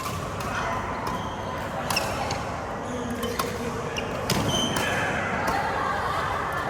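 Badminton rally: several sharp racket strikes on the shuttlecock a second or two apart, with brief shoe squeaks on the court floor.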